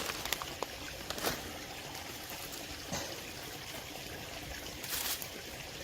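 Running water trickling steadily, with a few light knocks of handling.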